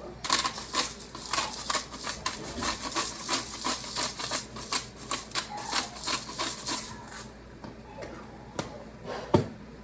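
Hand-twisted pepper grinder grinding fresh pepper: a quick, uneven run of clicks lasting about seven seconds, then a single knock near the end.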